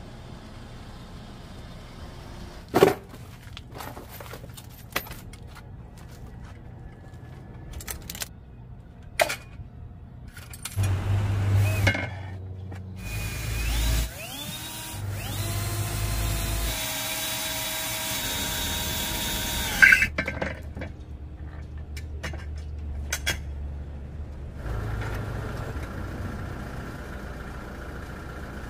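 A power drill spins up and runs steadily for several seconds, amid scattered sharp clanks and knocks of tools being handled.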